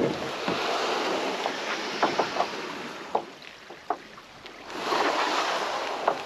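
Hull of a narrow rowing boat sliding along a ribbed launching mat, a hissing scrape in two stretches, the second about two-thirds of the way in, with a few light knocks between.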